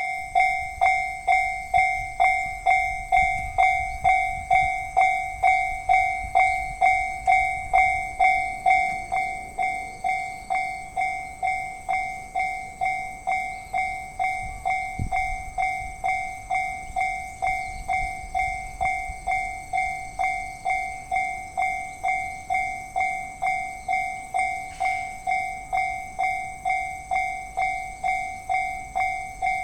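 Japanese railway level-crossing warning bell ringing at an even rate of about two and a half dings a second, each ding a clear tone that dies away quickly. A low rumble sits under it in the first nine seconds or so, then fades.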